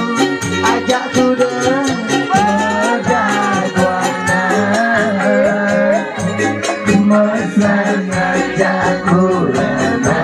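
Balinese pop band playing live through a PA, with a fast, even shaker-like beat and a wavering sung melody in the middle.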